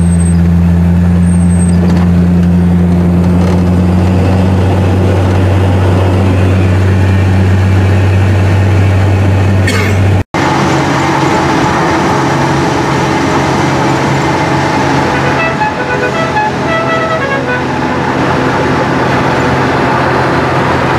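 A 1963 Chevrolet Impala on the road: a steady low drone of engine and road noise. About ten seconds in it cuts to another stretch of driving with a different steady hum, and a run of short tooting tones comes about fifteen to eighteen seconds in.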